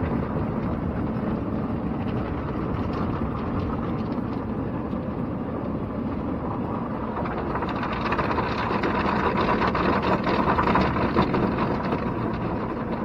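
Automatic car wash heard from inside the vehicle's cab: spinning cloth brushes scrubbing and slapping the windshield under water spray, a steady rushing noise that grows louder from about seven seconds in.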